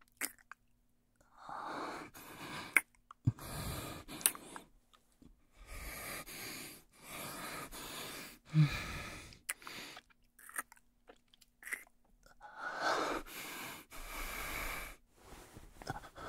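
Close-miked ASMR kissing: wet lip smacks and mouth clicks between breathy exhales, with a short low hum about two-thirds of the way through.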